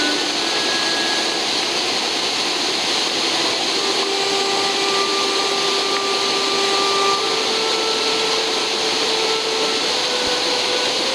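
Loud, steady rush of a fast mountain torrent, with soft background music of long held notes that step up in pitch over it.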